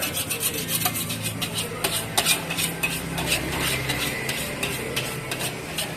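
Metal spatula clinking and scraping against a wok as fried rice is stir-fried, with quick irregular strikes several times a second over a steady low hum.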